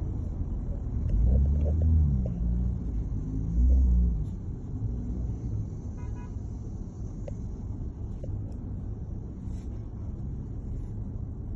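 Motor vehicle engine rumbling in road traffic, its pitch rising and falling in two louder swells within the first four seconds, then a steadier low rumble.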